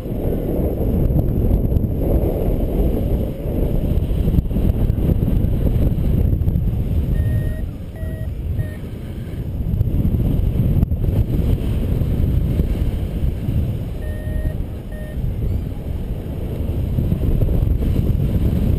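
Airflow rushing over the microphone of a paraglider pilot's camera in flight, a steady low rumble. Twice, about seven and fourteen seconds in, a flight variometer gives a few short beeps.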